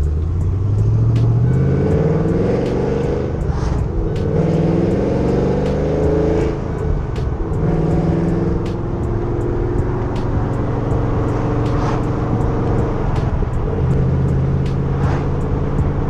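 The cammed LS3 V8 of a 2010 Camaro SS, with long-tube headers and Borla ATAK axle-backs, heard from inside the cabin as it accelerates through the manual gearbox. Its pitch climbs in pulls and falls at each gear change, then settles to a steadier drone near the end. An exhaust leak has been partly fixed but is not fully gone.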